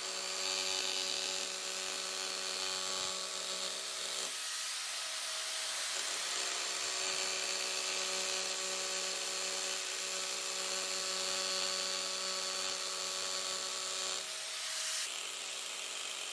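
Arbortech Power Chisel, an angle-grinder-driven reciprocating carving chisel, running steadily with a steady motor hum while its V-chisel blade cuts a lettering groove into wood.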